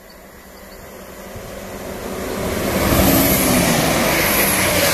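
A Chiltern Railways Class 168 diesel multiple unit, three units coupled, approaching at speed and passing close by. Its wheel and diesel-engine noise grows steadily into a loud rush that peaks about three seconds in, with tones dropping in pitch as it goes past.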